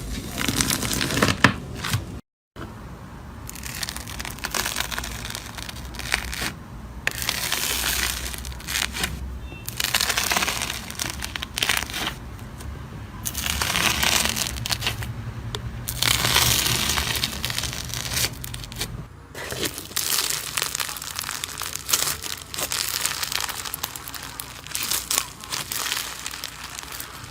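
Slime being squeezed, pressed and stretched by hand, giving crackly, crinkling squishes in irregular bursts. The sound drops out briefly about two seconds in.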